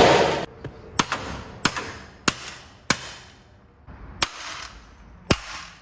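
Hammer striking a bent sheet-metal panel six times, mostly about two thirds of a second apart, each blow sharp with a short metallic ring: the panel is being beaten back into shape. A loud burst of noise cuts off about half a second in.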